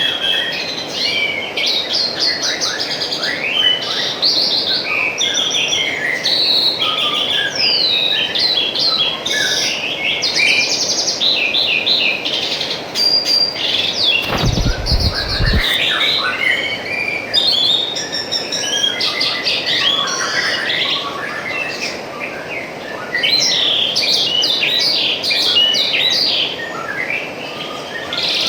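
Many small birds chirping and trilling in quick, overlapping phrases over the steady rush of trickling water. A brief low thud or rumble comes about halfway through.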